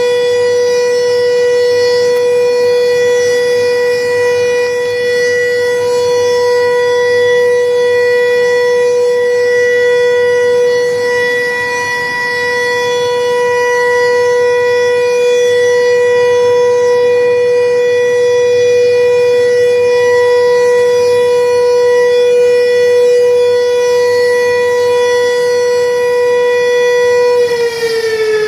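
Siren sounding one steady, loud tone, held unchanged for almost half a minute, then starting to fall in pitch near the end.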